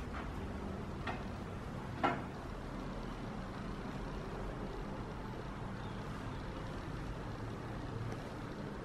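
Steady low hum of room noise with a few light knocks, the sharpest about two seconds in.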